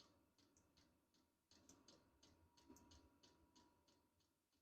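Faint, regular ticking of a Vevor diesel air heater's fuel dosing pump, about three to four clicks a second, with the heater being turned up to its maximum setting.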